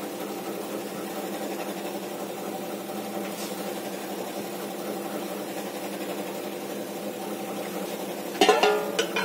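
A steady machine hum with several even tones. Near the end, a short metallic clatter as a steel lid is set on the aluminium cooking pot.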